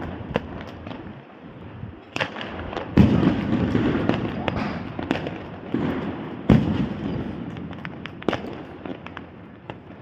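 Fireworks going off: a string of sharp bangs, the loudest about three and six and a half seconds in, with crackling and a low rumble between them.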